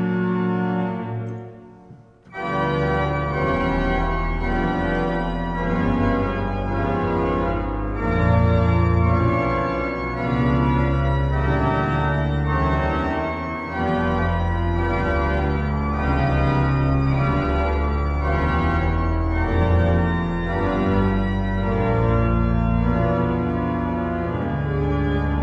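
Sanctuary organ playing: a held chord dies away about two seconds in, and after a brief pause it resumes with full sustained chords over a moving low bass line.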